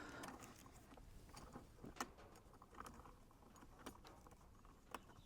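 Near silence with a few faint scattered clicks and light rustling: wiring plugs and cables being handled and pushed through a steering wheel boss.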